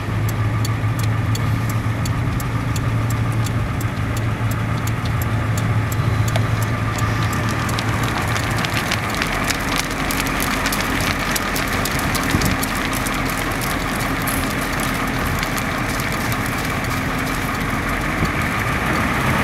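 A vehicle's engine and tyre noise heard from inside the cabin while driving slowly. A steady low engine hum gives way, about halfway through, to a louder rush of road noise as the vehicle picks up speed.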